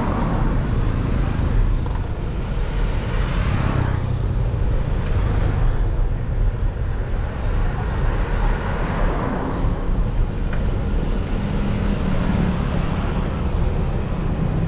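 Road traffic heard from a bicycle riding along a city street: cars and motorbikes passing, swelling and fading a few times over a steady low rumble.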